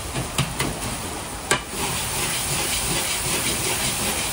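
Egg fried rice sizzling in a wok while a metal ladle stirs it. There are three sharp clinks of the ladle against the wok in the first second and a half, then the sizzle grows louder and steady.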